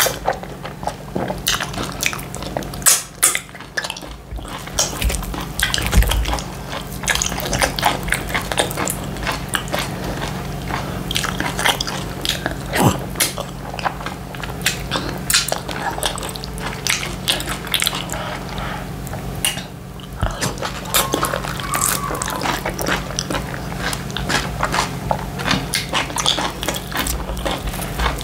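Close-miked eating sounds of a person eating semolina fufu with slimy ogbonor soup by hand: wet chewing and lip smacking, with many short clicks throughout, over a low steady hum.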